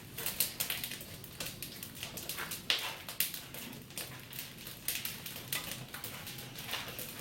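Firewood burning in a wood-fired pottery kiln, crackling and popping irregularly, with many small snaps and a few louder cracks.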